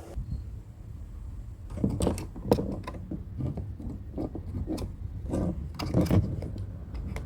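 Hand tool tightening the fastenings of a car door's power-window switch: irregular clicks, knocks and scrapes of metal and plastic, over a low rumble.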